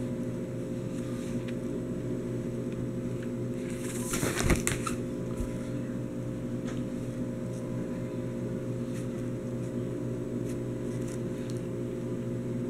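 A steady low hum, with one brief crinkling rustle and a few clicks about four and a half seconds in, as a plastic binder sleeve page of trading cards is turned.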